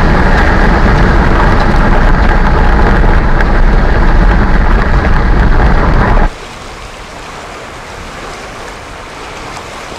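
Loud, steady road and engine noise from a moving car, heard from inside the car. It cuts off suddenly a little over six seconds in, giving way to a much quieter, steady wash of wind and sea.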